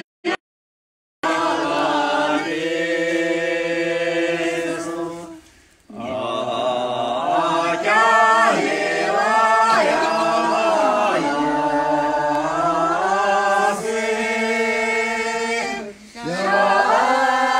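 A group of men and women singing together without instruments, holding long, gliding notes. The sound cuts out for about a second at the start and dips briefly about five seconds in.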